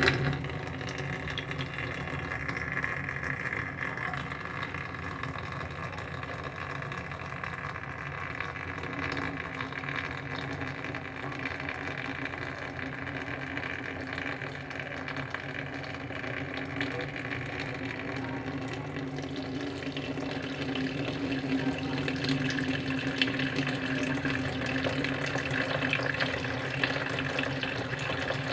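Water pouring steadily into a room as it floods, a continuous rushing with a low steady hum underneath, growing louder and rougher about twenty seconds in.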